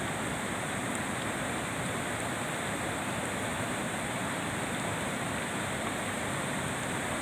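Steady rushing noise of flowing water, even throughout, with a constant high hiss above it.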